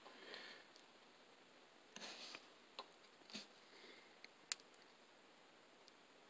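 Near silence: room tone with a few faint, short clicks and rustles, the sharpest click about four and a half seconds in.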